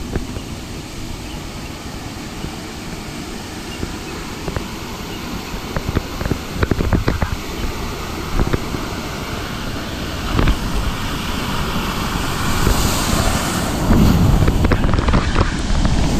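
Water sloshing and splashing around an inflatable ride tube in a water park channel, with short knocks of water close to the microphone. The rush of water grows louder in the last few seconds as the tube is carried into a splash.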